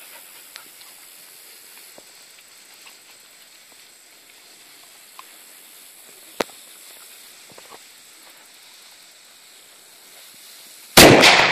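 Mini black powder cannon's fuse hissing faintly as it burns down, then the cannon firing with a sudden loud bang near the end.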